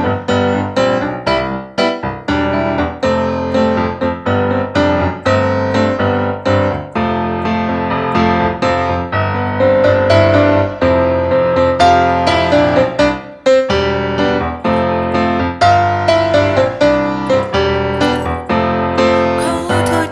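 Roland RD-700 digital stage piano playing a song introduction: repeated struck chords under a melody line, with a brief break about thirteen seconds in.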